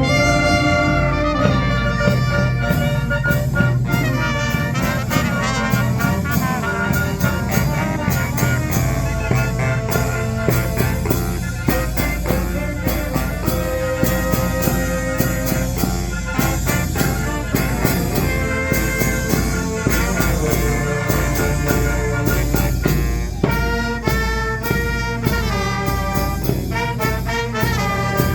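Fanfare band playing live: trumpets and trombones carry the tune over a steady, driving drum beat.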